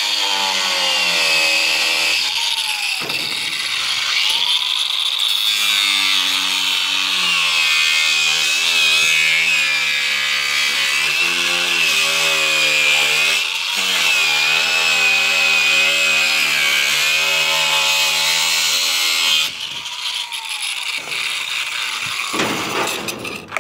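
A cordless DeWalt angle grinder runs and cuts through a plastic wiper cowl cover, its motor pitch dipping each time the disc bites into the plastic. It stops briefly about three seconds in, then runs on until it shuts off about nineteen seconds in.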